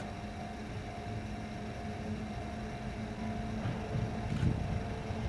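Chichibu Railway Deki 102 electric locomotive approaching at low speed with its freight train: a steady hum with a few held tones over a low rumble, slowly getting louder, with a single soft knock near the end.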